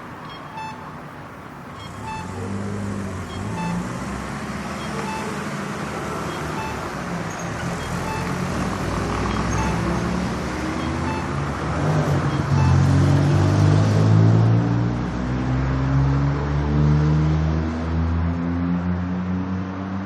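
A traffic-light crossing signal beeping at an even pace, about one beep every second and a half, over street traffic. From about halfway on, car engines grow louder and rise in pitch as vehicles accelerate away.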